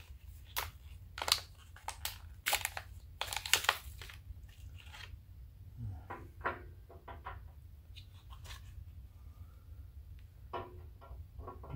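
Tools and hardware being handled on a workbench: an irregular run of sharp clicks, knocks and rustling scrapes, busiest in the first few seconds, over a steady low hum.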